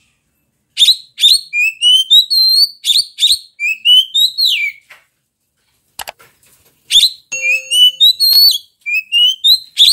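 Oriental magpie-robin singing loudly: a run of varied phrases, each a sharp note followed by whistles that rise and fall, with a break of about a second in the middle before the song resumes.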